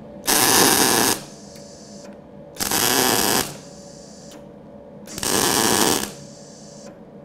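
MIG welder laying three spot welds on steel sheet metal, the arc running for about a second each time, with the three welds about a second and a half apart. A fainter hiss follows each weld as shielding gas keeps flowing with the torch held over the spot.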